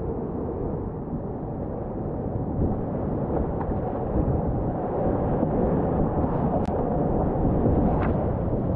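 Whitewater creek running at about 400 cfs: a steady, loud rushing of water, with two faint clicks near the end.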